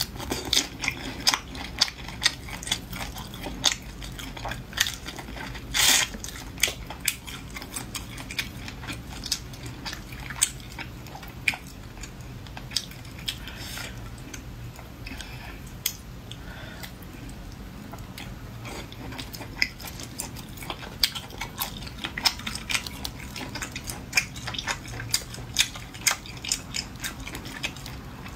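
Close-miked eating of braised shrimp and abalone: wet chewing with sharp smacking clicks at irregular intervals as pieces are bitten and pulled apart by hand, a louder click about six seconds in.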